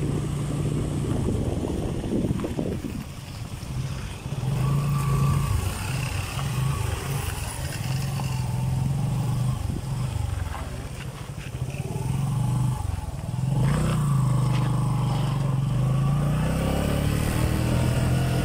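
Motor vehicle engine running while driving, its pitch rising and falling with speed.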